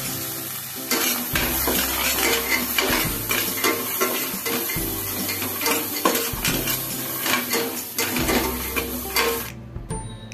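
Metal spatula stirring peanuts dry-roasting in a stainless steel pan: repeated scraping and clinking of metal on metal and nuts rattling, with a light sizzle from the wet masala coating. The stirring stops shortly before the end.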